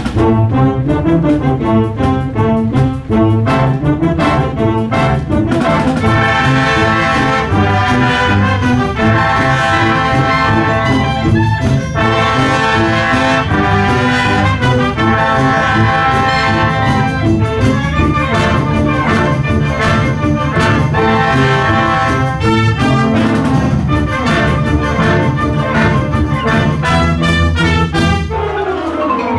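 School wind band playing a loud medley arrangement, with trumpets and trombones to the fore over saxophones, clarinets, flutes and tubas. Near the end the music sweeps downward in a quick falling run.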